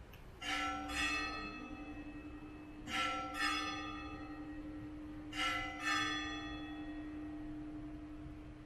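Church bell ringing: three pairs of strokes about two and a half seconds apart, with a low hum ringing on between and after them.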